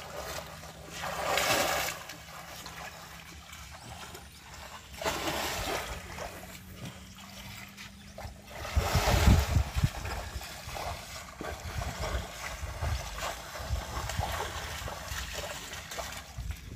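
Splashing in shallow muddy floodwater as a child crawls and slides through it on his belly, coming in several bursts over water running across the mud. The loudest burst, about nine seconds in, comes with a low rumble.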